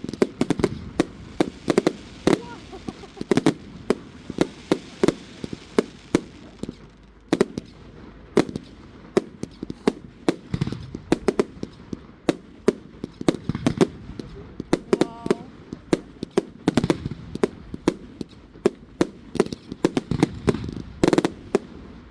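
Fireworks display: a dense, irregular barrage of sharp bangs and crackles, several a second, over a low rumbling boom.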